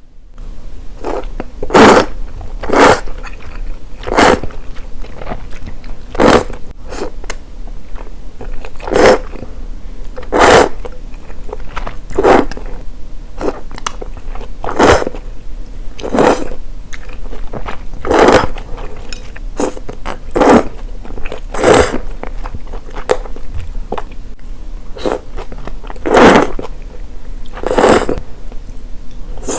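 A person slurping Morioka reimen noodles: loud slurps one after another, roughly every one to two seconds, with quieter chewing in between.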